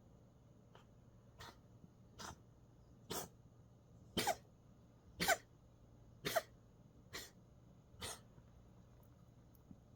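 Domestic cat coughing in a fit: about eight short coughs roughly a second apart, growing louder toward the middle of the run and fading near the end.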